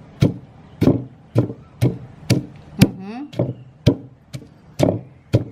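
A pestle pounding in a mortar at an even pace of about two strokes a second, each stroke a sharp, dull knock: the long beans being bruised and broken with the garlic and chili for green papaya salad. A short burst of voice about three seconds in.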